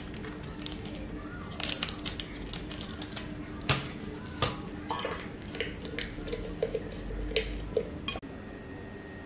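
Small handling sounds at a kitchen counter: sharp clicks, taps and clinks of metal scissors and a glass vase, with light crinkling of a small sachet. The two loudest clicks come close together about four seconds in.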